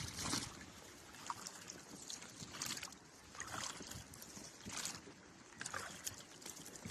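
Faint water lapping and sloshing, with small irregular splashes about once a second.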